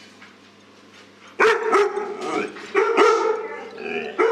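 Dog barking: a quiet start, then several loud barks beginning about a second and a half in, coming roughly in pairs, with another at the very end.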